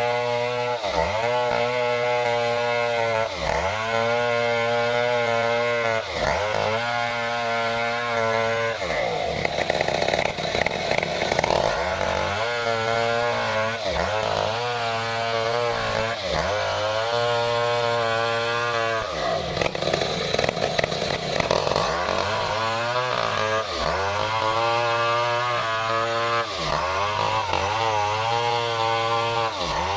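Stihl 070 two-stroke chainsaw running hard while ripping lengthwise through a durian tree trunk. Its steady engine note wavers every second or so and turns rougher twice, at about a third and two thirds of the way through.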